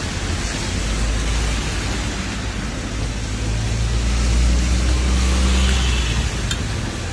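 A motor vehicle's engine running close by, a low rumble that builds over a few seconds and drops away near the end, over a steady hiss. A light click sounds just after the rumble fades.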